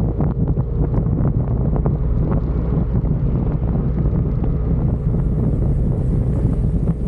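Wind buffeting the microphone of a camera on a moving Yamaha Aerox 155 scooter, with the scooter's single-cylinder engine running steadily underneath. Frequent short crackles and knocks run through it.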